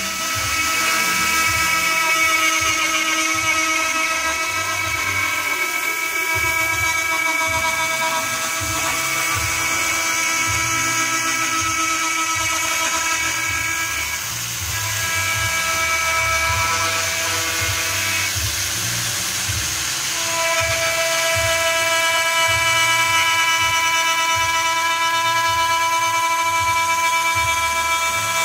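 CNC milling machine spindle and end mill cutting aluminium: a steady high whine of several tones over the cutting noise, the tones shifting in pitch about halfway through and again a few seconds later.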